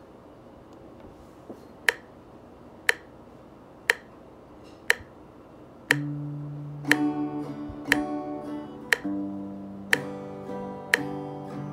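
Sharp clicks about once a second, then about six seconds in an Olympia steel-string acoustic guitar starts playing chords in time with them.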